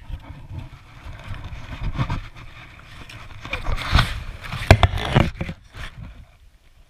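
A small plastic snow shovel scraping and bumping across packed snow, with a cluster of sharp knocks about four to five seconds in.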